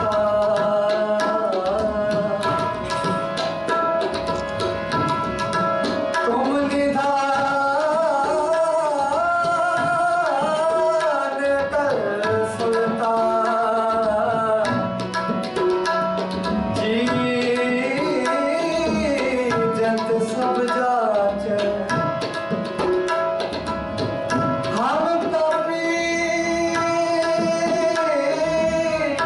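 Devotional kirtan: a man sings to his own harmonium, with tabla drumming beneath. The harmonium and tabla play on their own at first, and the voice comes in about six seconds in.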